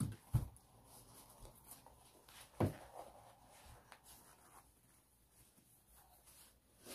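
Soft rustling and small clicks of hands working sneaker laces while tying the shoes on, with a brief knock about two and a half seconds in.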